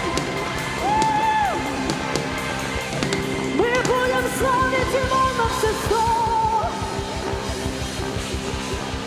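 Live band playing: electric guitar and a steady drum beat under singing with long held notes.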